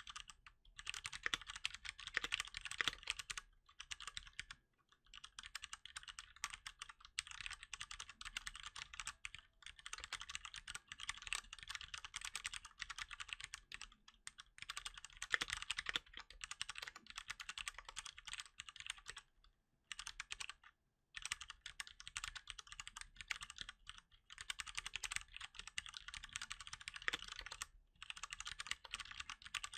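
Fast, continuous typing on a Cherry MX Board 3.0 S mechanical keyboard with Cherry MX Brown tactile switches: a dense clatter of key clicks in long runs, broken by a few brief pauses.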